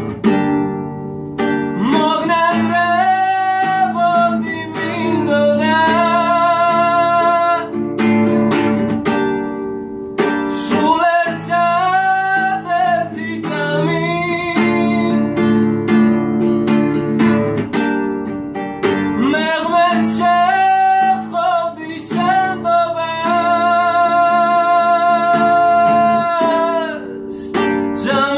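A man singing a slow melody with long held notes to his own strummed classical guitar, with short guitar-only gaps between the sung lines.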